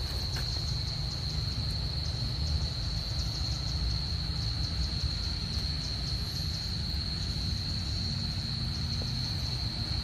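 Insects calling in one steady, high-pitched drone over a constant low rumble.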